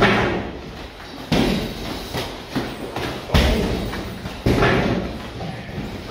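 Irregular sharp thuds of boxing sparring: punches landing on gloves and a body protector, and feet on the ring floor, about six in all, each echoing briefly in the room.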